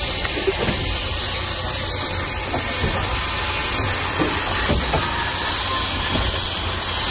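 2-8-2 steam locomotive 4501 giving off a loud, steady hiss of steam as it moves slowly.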